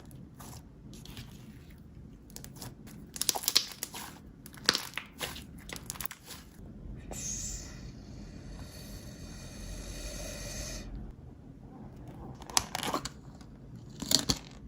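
Crunching, crackling handling sounds, then a steady whirring buzz for about four seconds, and more crackles near the end.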